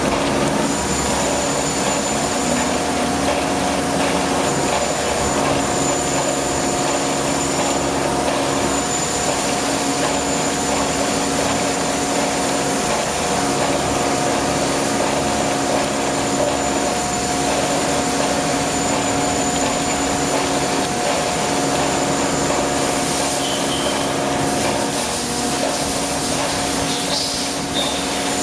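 Bridge-type die-sinking EDM machine running: a steady machine hum made of several held tones over a whir, with a faint high whine coming and going.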